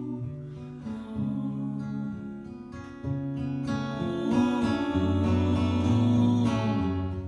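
Acoustic guitar playing chords in an instrumental passage of a folk-pop song, growing louder about three seconds in and easing off near the end.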